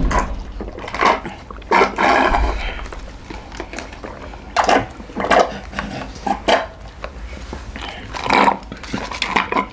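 Several people sucking juice hard through drinking straws: a string of short, noisy slurps in irregular bursts.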